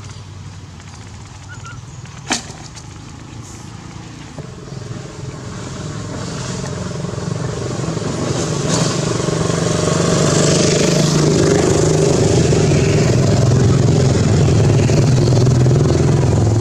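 A motorcycle engine running, getting steadily louder from about six seconds in. There is a single sharp click about two seconds in.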